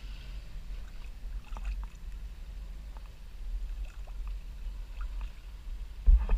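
Water lapping and splashing close to a camera held just above the surface as it moves through shallow floodwater, over a steady low rumble, with a louder knock about six seconds in.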